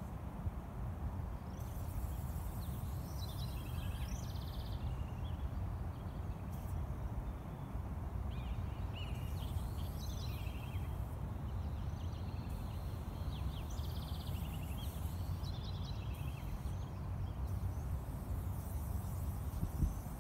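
Steady low outdoor rumble with birds chirping in short bursts a few times.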